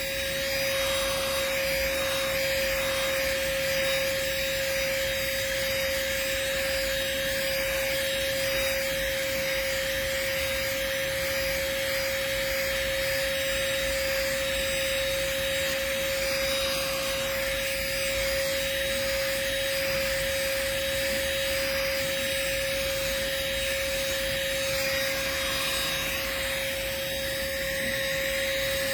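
Chuboor handheld cordless car vacuum running steadily, with a constant motor whine and airflow noise as it sucks pet fur off upholstery.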